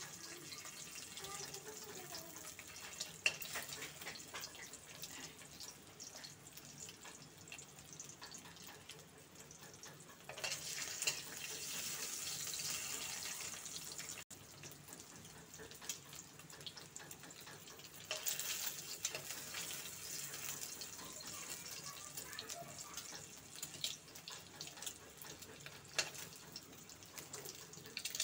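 Whole boiled eggs sizzling as they fry in a little oil in a steel kadhai. The sizzle swells for a few seconds about ten seconds in and again later. A few sharp clinks of a metal spoon against the pan come through.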